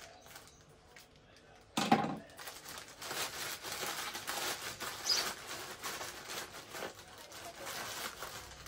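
Plastic courier mailer bag being opened by hand: a sudden loud tear about two seconds in, then continuous crinkling and rustling of the plastic as it is pulled apart.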